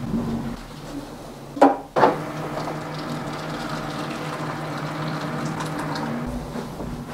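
Water poured from an electric kettle into a shaving bowl, a steady splashing stream for about four seconds. A couple of sharp knocks come just before the pour starts.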